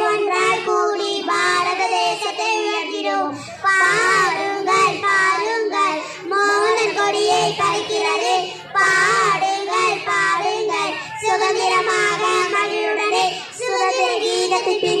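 Young girls singing a Tamil patriotic song.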